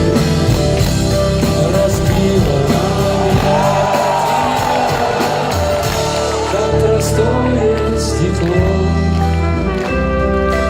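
Live rock band playing a slow song with no words sung, recorded from the audience on a phone. A lead melody line bends in pitch near the middle over steady bass and drums.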